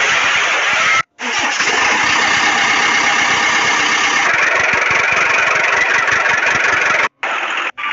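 Engine sound running steadily with a dense rattle, cutting out abruptly for a moment about a second in and again near the end.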